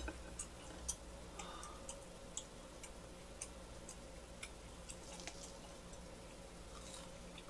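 Faint, irregular crisp clicks of biting into and chewing a butter-toasted gijeongtteok, a Korean fermented rice cake, its toasted crust crackling.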